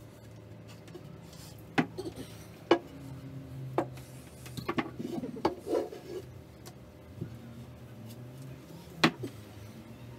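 Workshop handling noise: a handful of sharp knocks and a short clatter as wooden pieces and tools are picked up and set down, the sharpest knock near the end, over a faint steady low hum.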